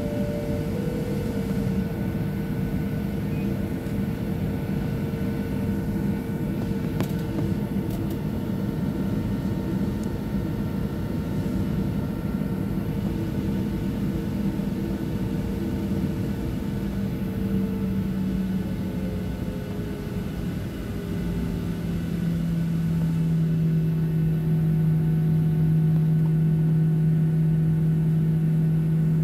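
Steady cabin drone of a Boeing 737-800 moving on the ground, engines and cabin air running, with a few steady tones through it. About twenty seconds in, the tones settle lower and the drone grows a little louder.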